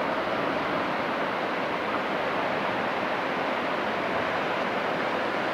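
Steady rushing of water from a passing container ship's bow wave and wash, with a faint steady hum under it.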